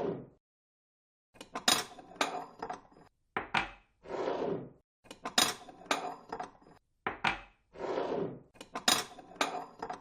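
Dishes and cutlery clinking in a repeating pattern: a short swishing noise followed by a quick cluster of clinks and taps, three times over.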